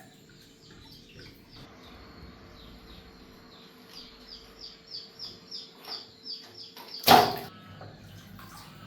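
A bird chirps a run of short falling notes, about three a second, over a faint steady hum. About seven seconds in the hum stops and a single loud, sharp knock sounds.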